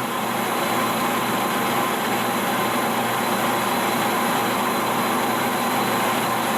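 Metal lathe running under load, taking a heavy quarter-inch-deep cut at ten thousandths feed on bushing stock: a steady machine hum with the hiss of the cut and no change in pace.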